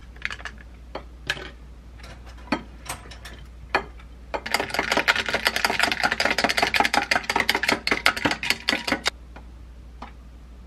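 Ice cubes clinking against a glass as a powdered kombucha drink is mixed: a few scattered clicks and taps at first, then about four seconds of fast, dense clinking as the drink is stirred briskly, stopping suddenly.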